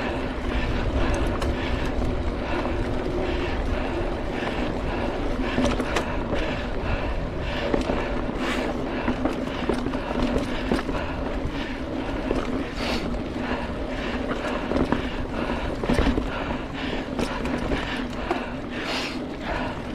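Mountain bike riding along a dirt trail: a steady rumble of tyres and riding noise, with frequent rattles and knocks as the bike goes over bumps.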